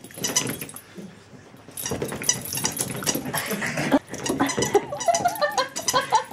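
Small dog vocalizing as it shakes a ball toy hard with its head, with quick rattling knocks from the toy and its collar, busiest from about two seconds in.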